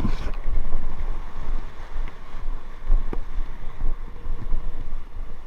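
Wind buffeting the microphone over a very rough sea, with a wave surging and splashing right at the start and dying away within half a second.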